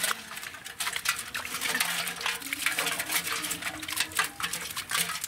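Hands rummaging through a net of wet leaves, fish and prawns in shallow water: splashing and rustling with many small, quick clicks throughout.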